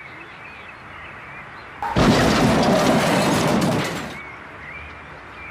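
A loud rushing burst of noise, lasting about two seconds and then fading, over a steady quieter background noise.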